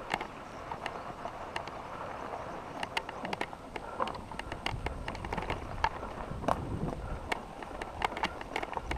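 Mountain bike rolling over rough dirt and gravel, with tyre crunch and frequent sharp clicks and rattles from the bike and loose stones. A low rumble rises about halfway through.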